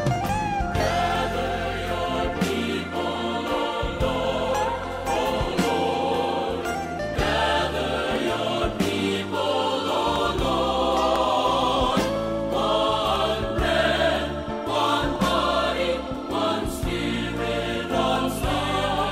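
A choir singing a hymn over instrumental accompaniment, with deep bass notes changing every second or two.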